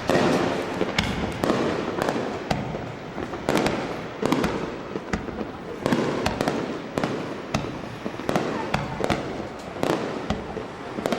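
Fireworks display: a rapid, irregular series of shell bursts, with sharp bangs and crackling one after another.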